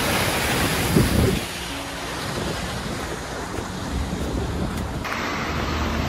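Muddy snowmelt water gushing over a concrete outlet in a heavy torrent: a loud, steady rush that drops to a quieter rush after about a second and a half, with a few low knocks on the microphone about a second in.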